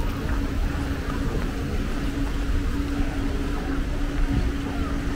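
Outdoor ambience: a steady mechanical hum holding one constant low pitch, over a strong low rumble.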